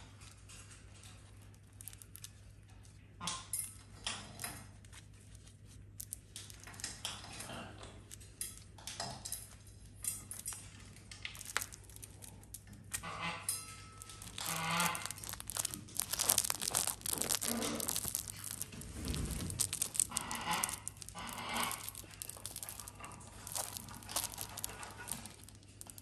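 Sulphur-crested cockatoo chewing and tearing at a fabric toy with its beak: irregular scratchy rustling, busier and louder in the second half.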